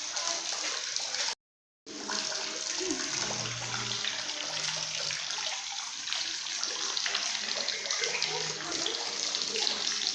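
Steady rushing of running water, with faint low sounds underneath. The sound cuts out completely for about half a second near the start.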